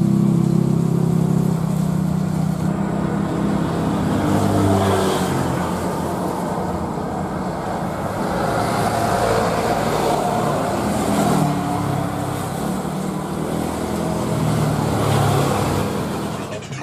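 Airbus A320-214's twin CFM56-5B turbofan engines at takeoff thrust as it races down the runway and lifts off: a steady jet noise with a low engine hum, loudest at the start and slowly easing as the aircraft climbs away.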